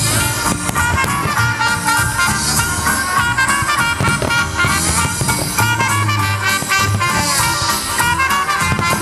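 Swing-style music with brass instruments playing steadily, the soundtrack of a fireworks display.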